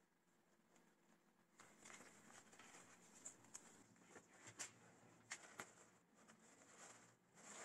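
Faint rustling and scraping of hands handling an Ashwood leather laptop bag and the crumpled packing paper inside it, with a few small sharp clicks, starting about a second and a half in.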